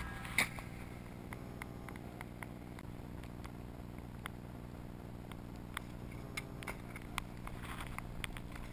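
Faint, low steady hum with scattered small clicks and knocks, the sharpest about half a second in, as a ski-bike is ridden over snow.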